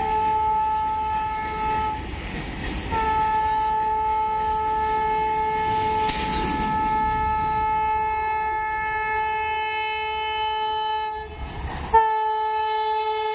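Vande Bharat Express train set sounding its horn as it approaches at speed, with a rumble underneath. The horn gives one steady pitched note, in long blasts: one ends about two seconds in, a long blast lasts about eight seconds, and another begins near the end.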